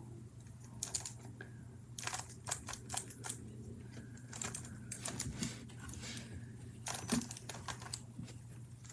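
Rubik's cube layers being turned by hand: irregular runs of plastic clicks and clacks, the cube freshly lubricated with petroleum jelly.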